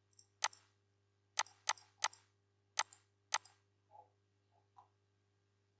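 Computer mouse clicking: six sharp clicks spread over about three seconds, some close together, then a few fainter taps.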